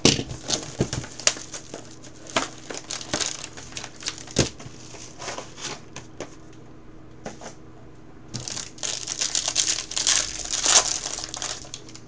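Cardboard card box and its foil-wrapped card pack being handled and opened: scattered clicks and rustles, then about three seconds of dense crinkling as the foil wrapper is torn open near the end.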